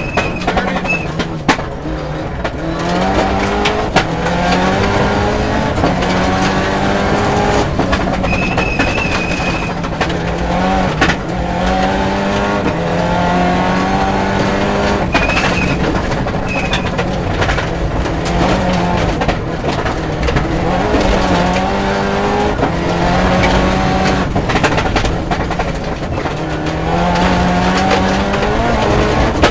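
Mitsubishi Lancer Evolution IX rally car's turbocharged four-cylinder engine heard from inside the cabin at stage pace, its revs climbing and falling again and again through the gear changes. Occasional sharp knocks and a few short high beeps sound over it.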